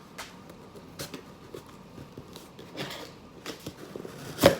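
A cardboard shipping box being worked open by hand: scattered light clicks and rustles, a rasping stretch about three seconds in, and one sharp loud snap just before the end.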